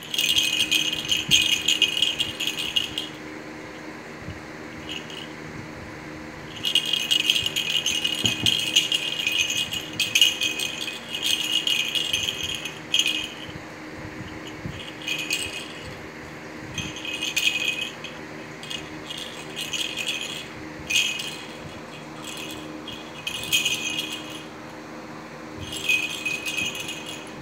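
Baby shaking a small plastic toy rattle, a dry bead rattling in bouts: long runs of shaking in the first half, then shorter shakes with pauses between.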